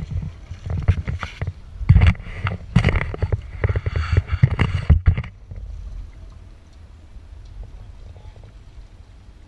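Clattering bumps and knocks from a handheld action camera being carried and handled, for about five seconds, over a steady low rumble that then carries on alone.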